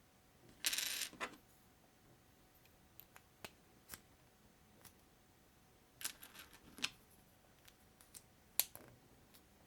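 Small plastic building bricks being handled: a brief clatter of loose pieces about a second in, then scattered clicks as bricks are pressed together, the loudest click coming near the end.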